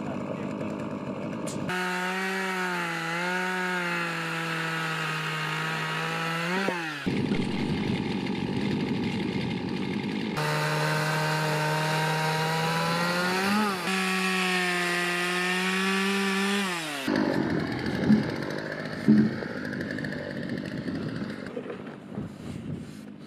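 Chainsaw running and cutting timber beams in two long spells, each rising in pitch and then cutting off. After that come quieter rubbing sounds and two sharp knocks.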